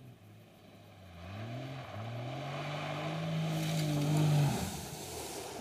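Jeep Cherokee XJ engine accelerating hard on a dirt road. Its pitch climbs, drops back at an upshift about two seconds in, then climbs again to a peak before the driver backs off near the end. A hiss of tyres throwing loose dirt rises along with the peak.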